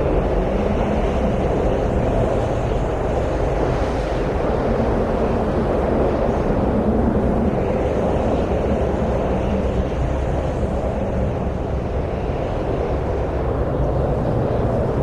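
Steady wind noise, a deep even rushing that swells and eases slightly.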